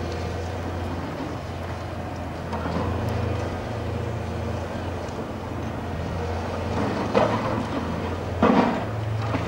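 High-reach demolition excavator's diesel engine running with a steady low hum, its crusher jaws working in the concrete floors. Two loud crunching crashes of breaking concrete and falling debris come near the end.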